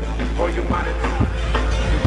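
Drum and bass music: a long, deep bass note held under sharp drum hits.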